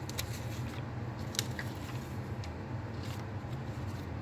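Paper time slips rustling and crinkling as they are picked up and shuffled by hand, a few short crackles over a steady low hum.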